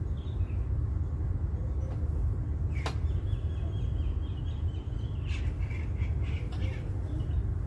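Steady low rumble of road and engine noise from a moving car. A sharp click comes about three seconds in, then a thin high tone, and a few short high chirps near the end.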